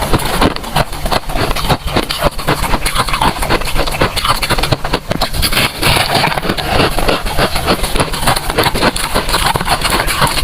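Freezer frost crunched close to the microphone: a dense, unbroken run of crisp crackles and scrapes.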